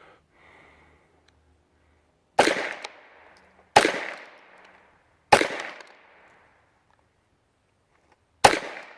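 Four shots from a Ruger .22 firing low-velocity (706 ft/s), 25-grain, lead-free Norma Eco Speed .22 LR rounds. Each is a sharp crack with a ringing tail of about a second. The first three come about a second and a half apart, and the last follows after a pause of about three seconds.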